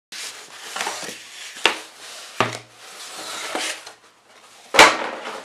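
Cardboard packaging being torn open and handled: rustling and scraping of the cardboard, with a few knocks, the loudest a sharp knock near the end.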